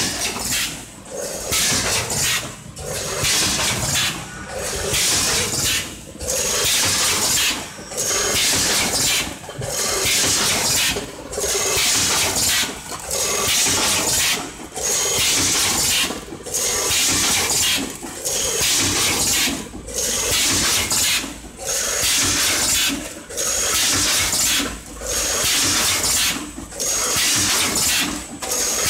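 Vertical form-fill-seal packing machine with a multihead weigher running in its bag cycle, packing corn flakes: a loud hissing rush that swells and cuts back about every 1.7 seconds, one surge per bag.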